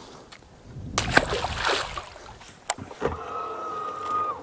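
A largemouth bass released back into the lake, splashing into the water about a second in. A sharp click follows, then a steady whine lasting about a second that cuts off near the end.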